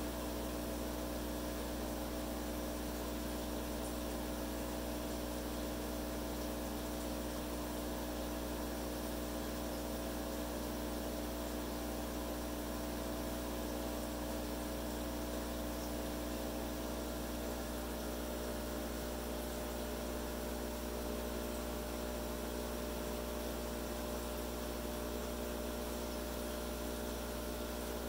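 Steady machine hum: a low drone with a few steady higher tones over a faint hiss, unchanging throughout.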